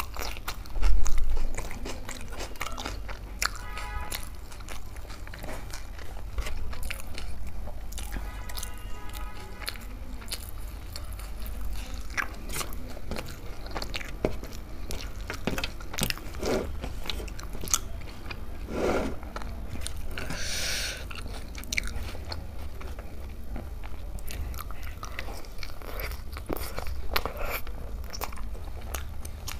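Close-miked chewing and crunching of food eaten by hand, typical of raw onion rings and roti, with many small crackles and wet mouth sounds. A loud thump comes about a second in.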